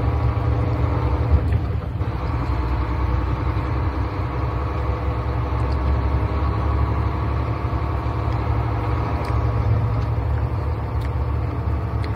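Steady engine drone and road noise inside the cabin of a vehicle driving on the freeway, holding an even pitch.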